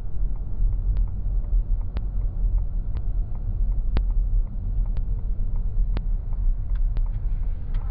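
Steady low road rumble inside the cabin of a moving Ford Mustang Mach-E, with a sharp light tick about once a second.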